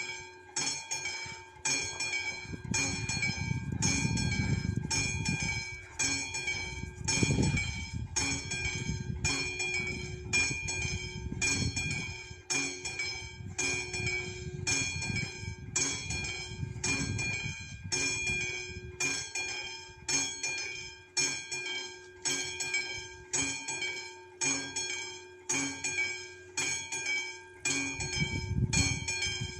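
Level-crossing warning bell (the classic electromechanical bell on a Czech VÚD crossing signal) ringing in steady strokes, a little more than one a second, while the crossing is closed for an approaching train. A low rumble swells and fades under it now and then.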